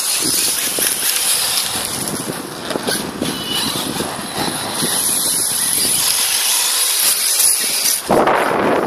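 Electric 1/8-scale RC buggies (Serpent 811 BE Cobra) running across grass, motors and tyres giving a steady noisy sound. About eight seconds in, a louder rush of wind on the microphone comes over it.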